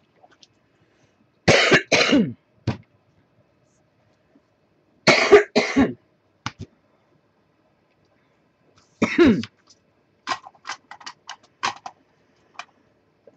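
A woman's coughing fit: harsh coughs in pairs a few seconds apart, then a single cough, then a quick run of shorter, quieter coughs near the end.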